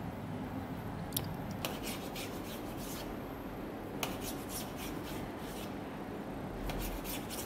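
A kitchen knife scraping over a thin fried egg sheet on a steel-topped cutting board in several runs of short strokes, with a couple of sharp clicks.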